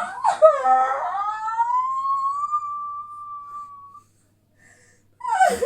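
A forced, exaggerated human sneeze bursting out just after the start, drawn into a long high-pitched wail that rises and holds for a few seconds before fading. A second short yelp comes near the end.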